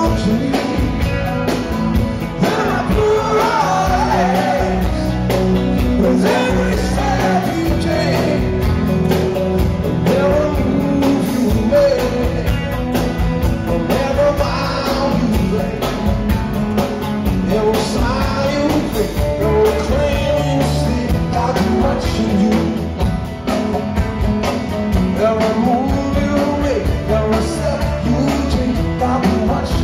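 Live rock band playing: electric bass, electric and acoustic guitars, fiddles and drums, with a lead voice singing over them.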